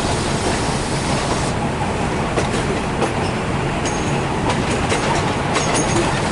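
Hitachi diesel multiple unit running along the track, its wheels clicking irregularly over rail joints and points, with two brief high-pitched wheel squeals in the second half.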